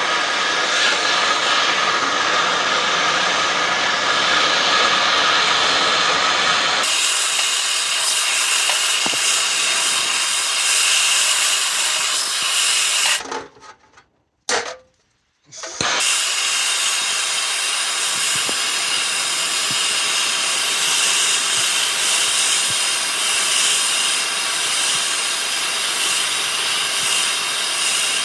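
Handheld gas torch burning with a steady hiss, heating a wheel bearing's inner race seized on the hub to free it. The sound changes about seven seconds in, stops for a couple of seconds around the middle, then comes back.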